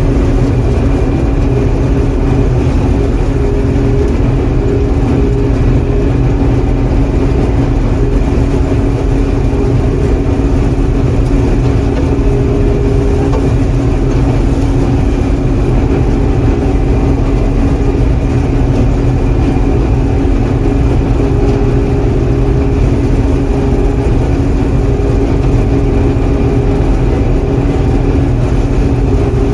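John Deere 4400 combine running steadily while harvesting soybeans, heard from the cab: a constant engine and machinery drone with a few steady low hums and no change in speed.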